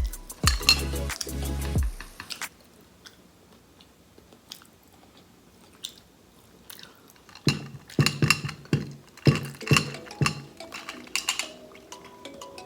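Close-miked chewing and biting of mini tacos, with crunchy bites. There is a dense run of loud bites about two thirds of the way through.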